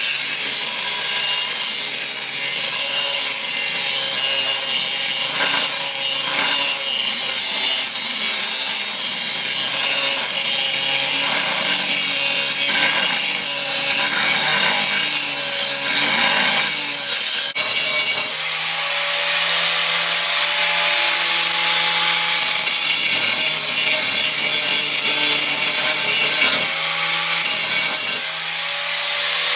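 Electric grinder working a 5160 spring steel blade, a steady high-pitched grinding hiss over the motor's whine. It changes pitch briefly about two-thirds of the way through, and the motor starts to wind down at the very end.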